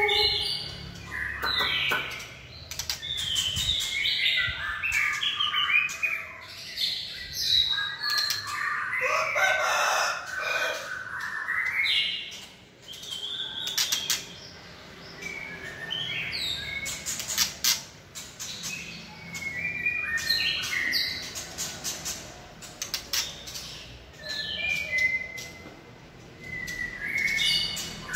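White-rumped shama singing a fast, varied run of whistled and chattering phrases, mixed with frequent short flutters and sharp taps as it hops about its cage.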